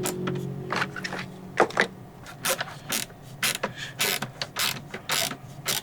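Screws being driven to refit a wooden cabinet drawer face: a short steady hum in the first second or so, then a run of irregular sharp clicks and knocks.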